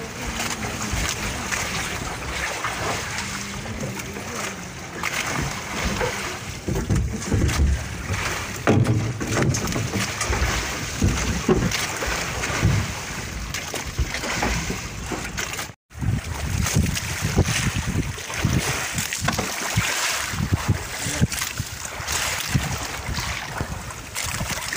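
Wind buffeting the microphone over the rush and splash of choppy sea against an outrigger boat's hull and floats as it runs along, in gusty surges. The sound cuts out for an instant about sixteen seconds in.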